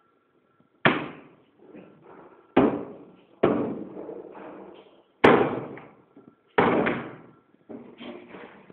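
A door being slammed or banged five times, a second or two apart, each bang ringing briefly before it dies away, followed by quicker, quieter knocks near the end.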